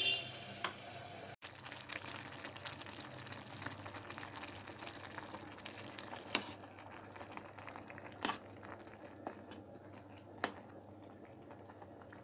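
Rice boiling in a pot of water, a dense steady crackle of bubbles, with a few sharper ticks about six, eight and ten seconds in. The rice is being parboiled for dum biryani.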